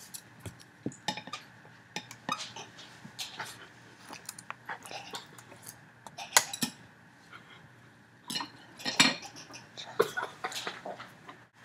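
Chopsticks clicking and tapping against a plate: a run of short, irregular clicks and clinks, the sharpest about six and nine seconds in.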